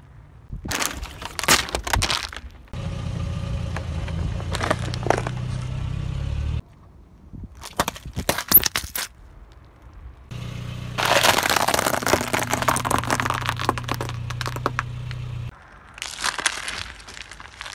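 Car tyre rolling slowly over small objects and crushing them with crackling and sharp cracking, in several separate clips cut one after another. A steady low car-engine hum runs under two of the clips, the longer one near the middle with dense crunching.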